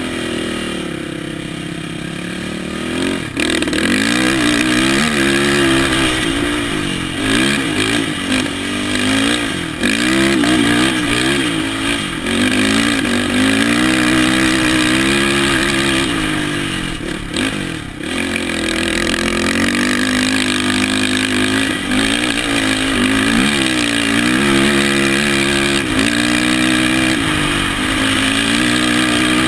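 ATV engine being ridden hard, revving up and falling back again and again as the throttle is worked, with a brief easing off a little past the middle.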